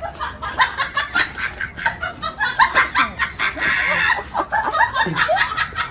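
Tabby cat making a rapid run of short, chicken-like clucking chirps, several a second.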